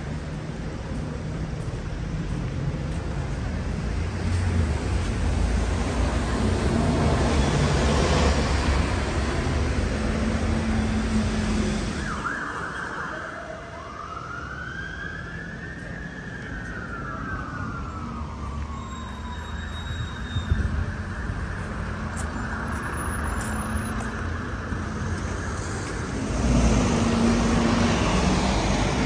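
Road traffic passing on a city street, with an emergency-vehicle siren giving one slow rising-and-falling wail about halfway through.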